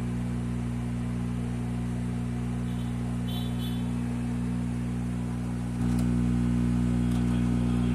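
Sony MHC-GTR55 mini hi-fi system putting out a steady low hum through its speakers: the noise fault it is known for. The hum gets louder about six seconds in.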